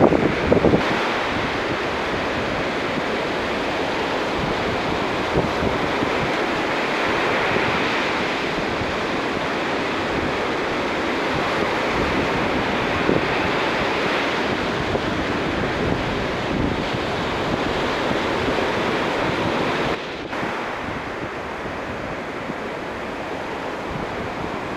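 Ocean surf breaking and washing up a sandy beach, a steady rush of waves with wind buffeting the microphone. About twenty seconds in there is a brief dropout, after which it continues a little quieter.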